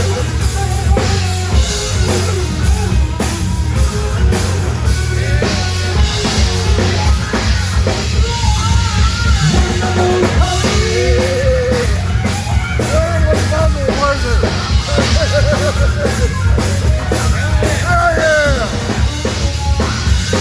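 Live rock band playing loudly, with a drum kit driving a steady beat under a strong low end and a wavering melodic line.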